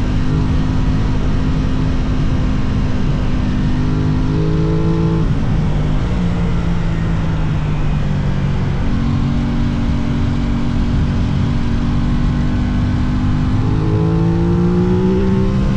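Aprilia RS660 parallel-twin motorcycle engine under way, holding steady revs, then revving up about four seconds in and dropping back at a gear change, and revving up again near the end.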